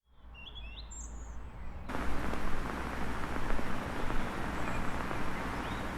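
Faint outdoor ambience with a few short bird-like chirps, then about two seconds in a loud crackling static hiss cuts in suddenly and holds steady.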